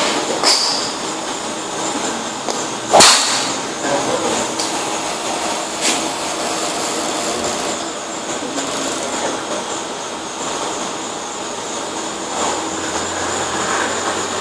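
TaylorMade Burner 9.5° driver striking a teed golf ball: one sharp, loud crack about three seconds in. A fainter click follows a few seconds later over a steady background hum.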